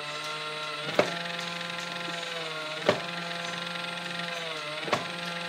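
Small electric motor of a battery-powered toy pottery wheel running steadily with clay on it, giving a humming whine whose pitch sags a little under load. A sharp click comes about every two seconds.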